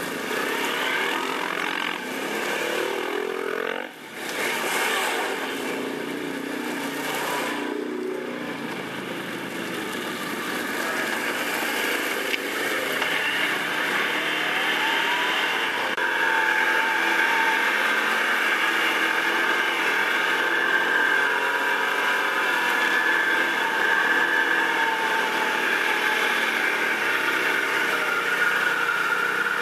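ATV engine running under way, its pitch rising and falling with the throttle. A brief dip comes about four seconds in, and the engine runs steadier and slightly louder through the second half.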